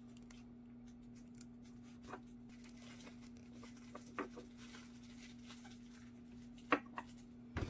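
A few faint, short plastic clicks and taps as a tiny plastic resin bottle is handled and tipped over a miniature cup, over a steady low hum.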